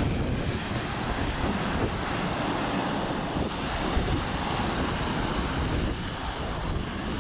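Wind blowing on the microphone, a heavy, unsteady low rumble over a steady wash of sea and surf.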